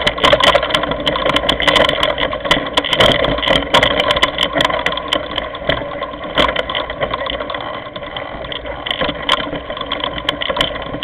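Mountain bike rolling over a loose, rocky trail, picked up by a camera on the handlebars: a steady rattle with many sharp clicks and knocks from stones and the bike's parts.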